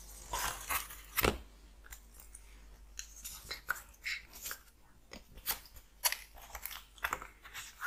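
Crisp crackling, tapping and rustling of stiff die-cut cardboard puzzle sheets as they are handled and flipped over on a table, with one sharper knock about a second in.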